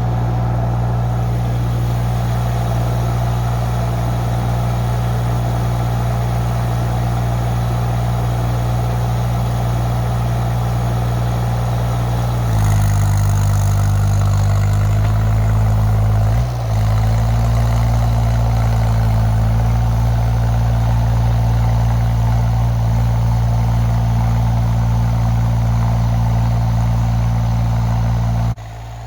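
A 2-ton mini excavator's engine running steadily. About twelve seconds in, its note shifts and grows louder, with a brief dip a few seconds later. Near the end the level drops suddenly.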